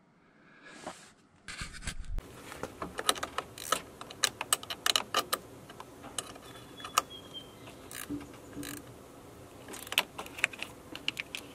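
Hand socket ratchet clicking in short runs, with metal tools clinking, as a fitting on the intake is tightened by hand.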